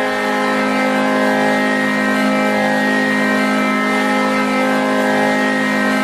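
Hockey arena goal horn sounding one long, steady blast: a low, constant tone with many overtones, unchanged in pitch and loudness.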